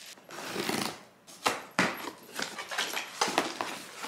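Cardboard box being opened by hand, its flaps and paper packing rustling, with a few sharp snaps and scrapes, the loudest about a second and a half in and again near three seconds.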